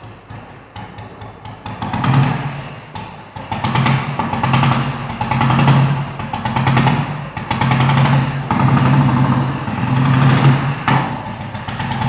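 Royal Enfield Bullet single-cylinder engine, bored out to 535 cc, running and being blipped again and again, its note swelling and falling back every second or two. The seller judges the engine to be in good condition.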